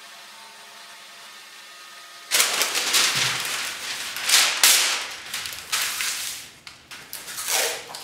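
Faint steady hum for about two seconds, then loud crackling and rustling in several swells as a stiff, curled sheet of brown paper is unrolled and smoothed flat by hand.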